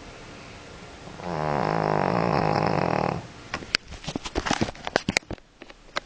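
Shih Tzu snoring in its sleep: one long, loud snore starting about a second in and lasting about two seconds. It is followed by a quick run of sharp clicks and knocks.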